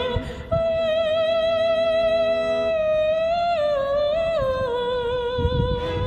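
Background music: a single singing voice holds a long high note, then steps down in pitch through a few notes in the second half.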